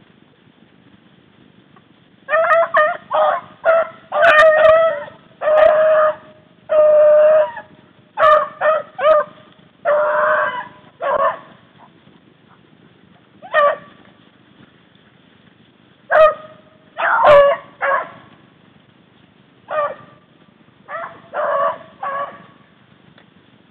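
Rabbit hounds (beagles) baying while running a rabbit's scent trail: a mix of short yelps and longer drawn-out bawls. The calls come thick and fast from about two seconds in, then thin out to scattered bays in the second half.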